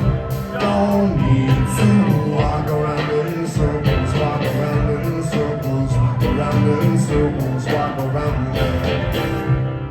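Live rock band playing, with a steady drum beat and a bass line under the mix.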